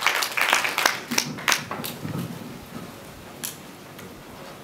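Audience applauding, the clapping thinning out and dying away about two seconds in. Quieter room noise follows, with a single sharp click a little later.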